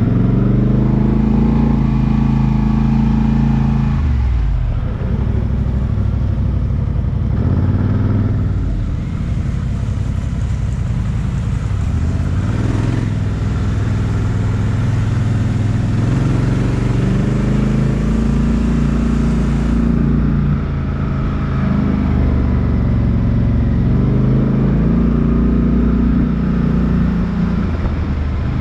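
Off-road 4x4 vehicle engine running under load on a step-up climb, its revs rising and falling in pitch several times as the throttle is worked.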